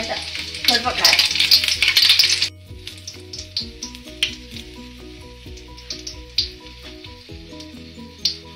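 A tempering of whole dried red chillies sizzling and crackling in hot oil in an aluminium kadai. It is loud for about the first two and a half seconds, then drops suddenly to a faint sizzle with occasional crackles under quiet background music.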